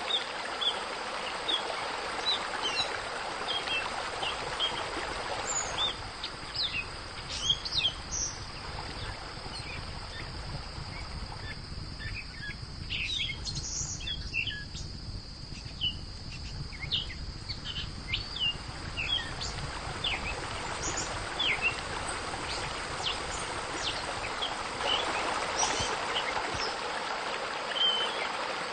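Many small birds chirping over a steady wash of running water, with a constant high-pitched tone underneath.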